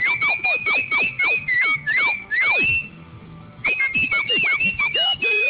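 A person whistling to call a dog: a quick run of short whistled notes, about three a second, each sliding down in pitch at its end, then after a short pause a second run of the same.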